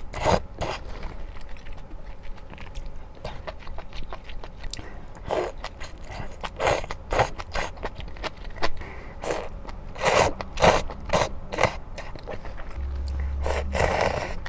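Close-miked eating sounds: spicy stir-fried octopus and somen noodles being chewed, with many short wet clicks and smacks. There is a louder cluster about ten seconds in and a longer, steadier sound near the end.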